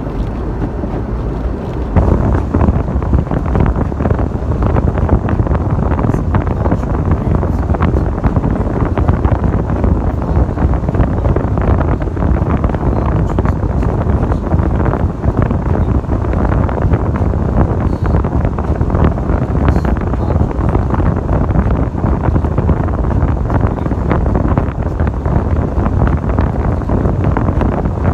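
Steady, loud low rumble of a vehicle on the move, mixed with wind noise on the microphone.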